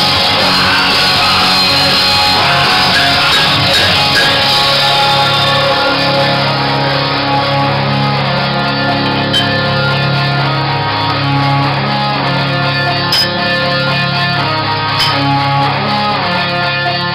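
Guitar-led background music with a steady rock feel.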